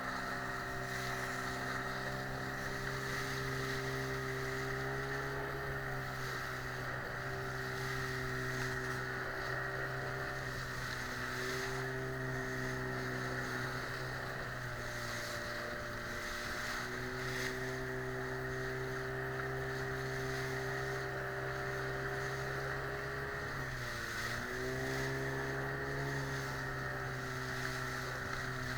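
Yamaha 15 FMHS outboard motor running steadily under way, its pitch wavering a little with throttle. Near the end the engine speed dips briefly and picks up again.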